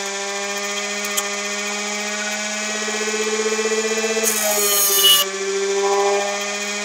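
Home-built air-core motor generator running with a steady electrical buzzing hum, its overtones wavering slightly in pitch. About four seconds in, a loud hissing crackle lasting about a second as an electric arc discharges at the output electrodes.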